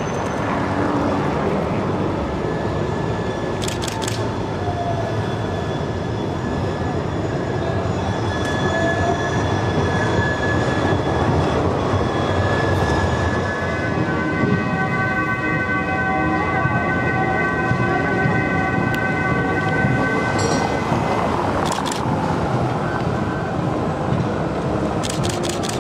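Trams and street traffic passing. From about halfway through, a steady high squeal of several tones is held for several seconds, and a few sharp clanks come near the start and the end.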